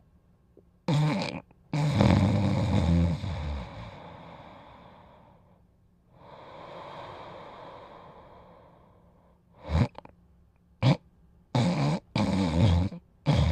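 A sleeping dog snoring. There is a long snore about two seconds in that fades slowly, a soft drawn-out breath, then a run of short, quick snores near the end.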